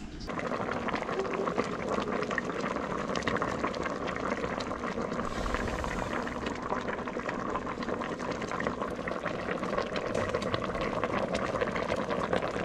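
Large steel pot of fish soup boiling hard, with a steady bubbling and popping that starts abruptly just after the beginning.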